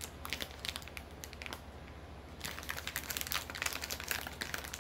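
Plastic packaging crinkling as items are handled, in scattered crackles that thicken from about halfway through to near the end.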